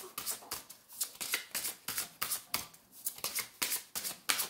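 A tarot deck being shuffled by hand: a quick, even run of card slaps and rustles, about four a second.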